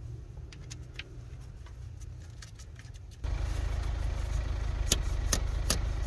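Slide-hammer puller knocking a glow plug, seized with carbon, out of a diesel cylinder head: sharp metal knocks about two to three a second in the second half. Under them, a low rumble comes up suddenly about three seconds in.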